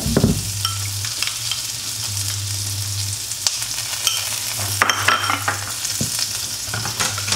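Chopped chilli and tomato sizzling in oil in a frying pan, a steady hiss. Over it, a spoon clinks a few times against a small bowl and a glass jar as a sauce is stirred. There is a knock at the very start.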